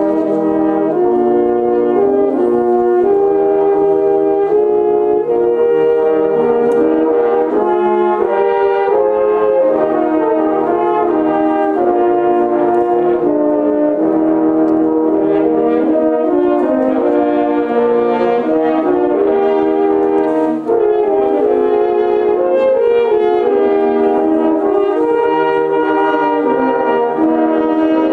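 French horn ensemble playing in several-part harmony, held notes moving from chord to chord, with a brief dip in level about twenty seconds in.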